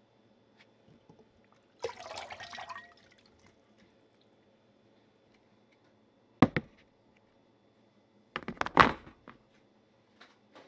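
Salt water splashing briefly in a stainless colander of soaking white melon slices about two seconds in, then a sharp knock and, near the end and loudest, a short rattling clatter of kitchenware being handled.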